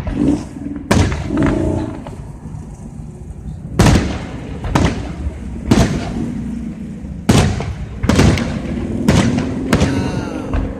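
Fireworks display: aerial shells bursting in a string of about eight loud booms, roughly a second or more apart, with low rumbling between them.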